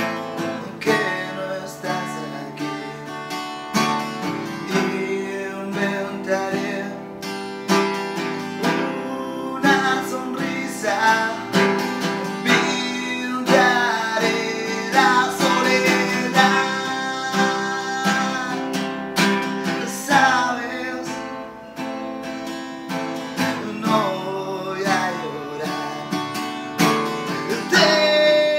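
A man singing while strumming a steel-string acoustic guitar.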